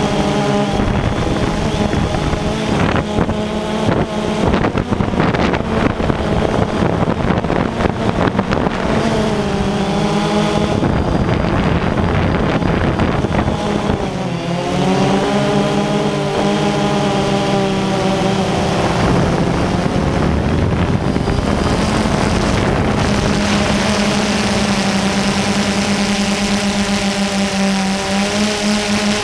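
Multirotor drone's electric motors and propellers whining, heard close from the onboard camera. The pitch dips and rises about ten seconds in and again around fourteen seconds as the throttle changes, then holds steady.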